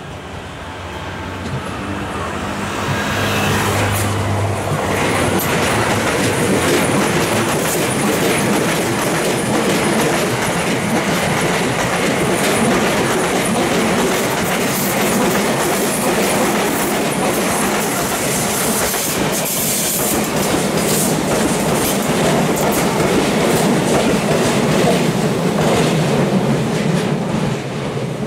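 Sotetsu electric commuter train approaching on a curve and passing close by, its wheels clattering rapidly over the rail joints. The sound builds over the first few seconds and falls away near the end.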